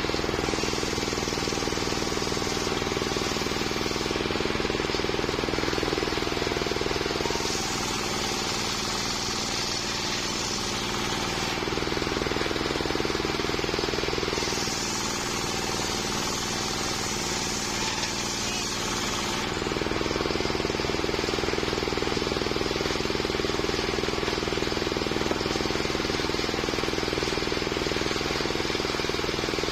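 Homemade circular sawmill running steadily while cutting a waru (sea hibiscus) log into boards. Twice, about a quarter of the way in and again past the middle, the sound turns brighter and hissier for about four seconds as the blade goes through the wood.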